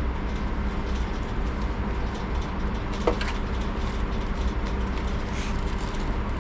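Steady low rumble with a constant hum, and one short high chirp about three seconds in.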